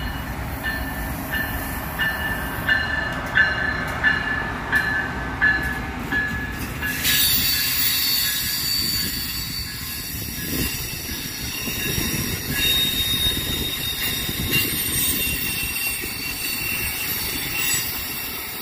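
Amtrak passenger train of Amfleet coaches rolling past on electrified Northeast Corridor track. For the first seven seconds the wheels beat in a steady rhythm about every two-thirds of a second, with a high squeal on each beat. Then it turns into a louder, steady rush and hiss with wheel squeal as the cars pass close by.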